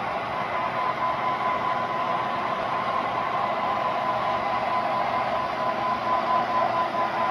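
HO-scale model diesel locomotives (EMD road-switcher models) running under load, their sound decoders playing a steady diesel engine hum through small onboard speakers over the whir of the running gear. It grows slightly louder as the locomotives come closer.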